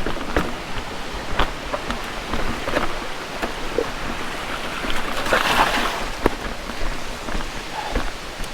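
Mountain bike riding a rough trail: rushing tyre and wind noise with frequent clicks and knocks from the bike rattling over the ground, and a brief swell of rushing noise about five seconds in.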